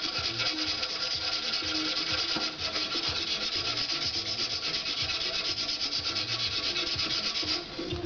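Hand sanding of a metal part clamped in a bench vise: a steady scraping rasp of quick back-and-forth strokes that pauses briefly near the end.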